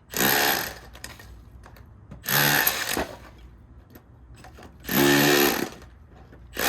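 Power tool run in four short bursts of under a second each, about every two and a half seconds, working hard stucco off a rock wall.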